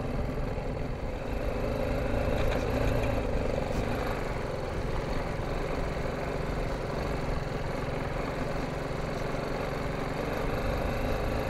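A BMW G 310 GS motorcycle's single-cylinder engine running steadily while the bike is ridden along a dirt road.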